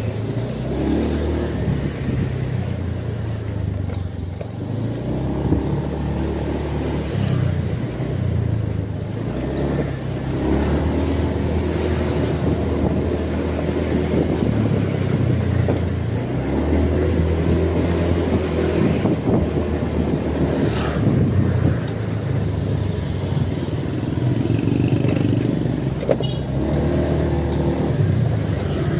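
A motor vehicle engine running, its pitch rising and falling in steps every few seconds as the speed changes.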